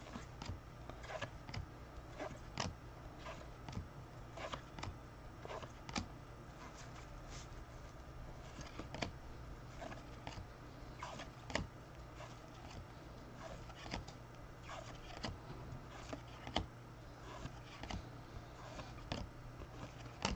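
2021 Topps Series 1 baseball cards being handled and flipped through, with irregular light clicks and rustles, over a steady low hum.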